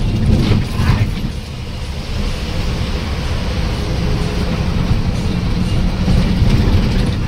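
Bus engine running at highway speed with road noise, heard inside the driver's cab, with a couple of short knocks in the first second.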